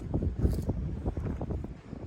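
Strong wind buffeting the microphone, heard as a gusty low rumble that keeps swelling and easing.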